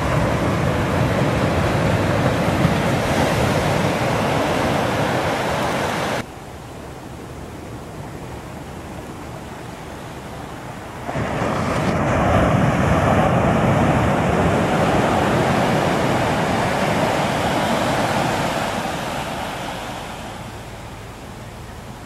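Pacific Ocean surf washing up a beach in a steady rush of foam. It drops suddenly to a quieter wash about six seconds in, comes back just as suddenly about eleven seconds in, and fades near the end.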